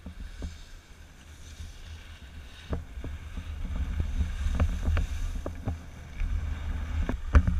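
Skis sliding and scraping on a packed snow piste, heard through a body-worn action camera, with a low wind rumble on the microphone that grows louder as speed picks up about two and a half seconds in. Scattered sharp clicks and knocks break through, the loudest a little after seven seconds.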